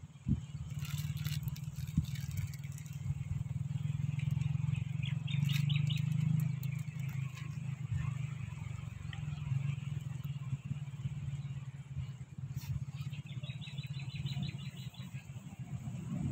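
A steady low outdoor rumble, with two short runs of rapid high bird chirps partway through.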